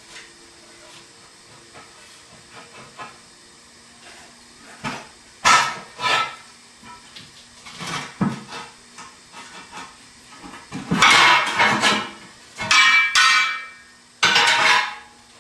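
Bars and tools knocking against a steel truck wheel in a few sharp strikes, then three loud, second-long scraping, squeaking bursts near the end as the rubber bead of a 22.5-inch tire is pried and forced over the lip of the rim.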